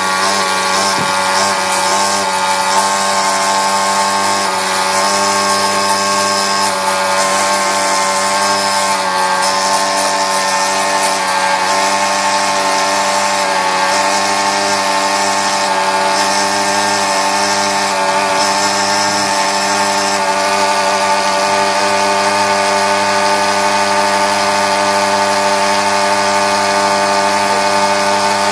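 Automated key-cutting machine running, its high-speed cutting spindles giving a steady multi-tone whine. A higher hiss comes and goes during the first twenty seconds or so.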